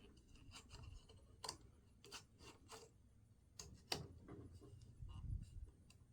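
Faint, scattered light clicks and taps of small plastic parts being handled: the bike theft alarm and its seatpost bracket. A soft low thump comes about five seconds in.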